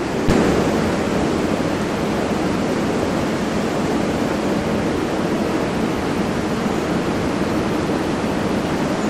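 Steady rushing noise, even and unbroken like pink noise or distant surf, with a soft click and a slight rise in level just after the start.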